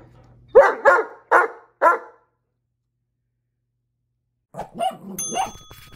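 Great Dane barking four times in quick succession. A few seconds later come a few softer yelps and a ringing chime.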